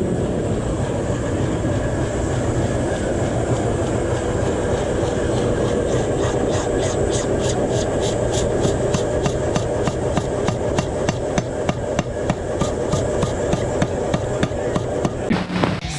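Hammer blows forging steel, struck in a steady rhythm of about three a second from about six seconds in, over a continuous rushing noise.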